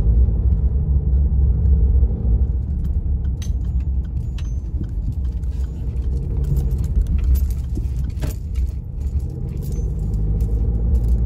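Car engine and road rumble heard from inside the cabin of a car creeping through city traffic, a steady low drone with scattered light clicks and rattles over it.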